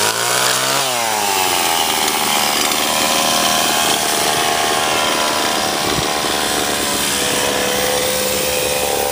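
Chainsaw cutting through a log, its pitch climbing and then dropping within the first second, then running steadily at an even pitch.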